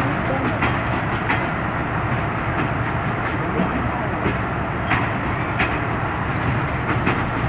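Argo Bromo Anggrek passenger coaches rolling past during shunting: a steady rail rumble, with the wheels clicking over rail joints at uneven intervals.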